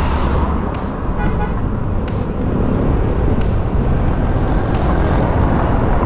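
A car driving at road speed: steady road and tyre noise with wind rumbling on the microphone.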